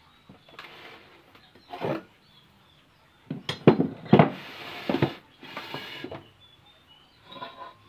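Metal clatter as a bench vise is worked and a steel control arm is taken out of its jaws: a few knocks and scrapes, then a run of sharp metal knocks in the middle, and a short clink near the end.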